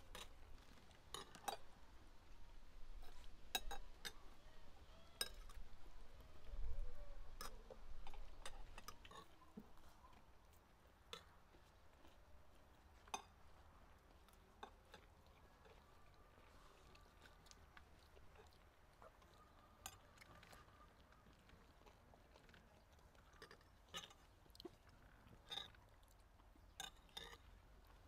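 Spoons and forks clinking lightly and irregularly against plates as people eat, faint scattered clicks. A low rumble runs under the first third and then fades.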